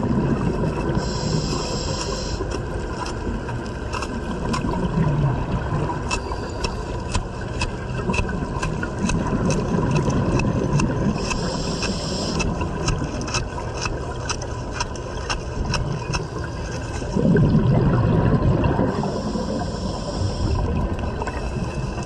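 Underwater diver breathing through a diving helmet: a hiss of air drawn in about every eight or nine seconds, with rumbling surges of exhaust bubbles between breaths, over a steady hum and scattered clicks.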